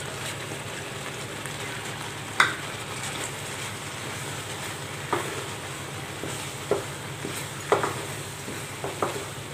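Wooden spatula stirring a thick mix of boiled green gram, jaggery syrup and grated coconut in a nonstick pan, over a steady low sizzle as the syrup cooks down and thickens. The spatula knocks against the pan about five times.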